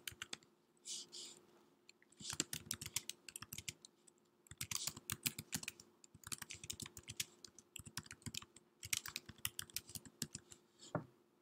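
Typing on a computer keyboard: several bursts of rapid keystrokes with short pauses between them, the last key near the end a little louder.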